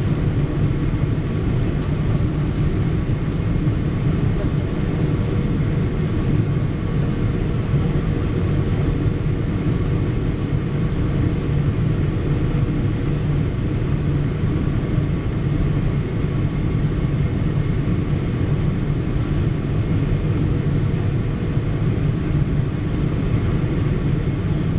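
Steady cabin drone inside a Boeing 777-300ER: the GE90-115B turbofans and the airflow over the fuselage make a deep, even roar, with a few faint steady whining tones on top.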